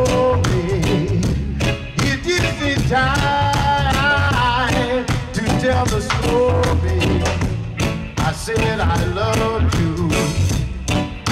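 A live reggae band playing: a male lead vocal sings over drum kit, bass, electric guitar and keyboards, with a steady beat and a strong bass line.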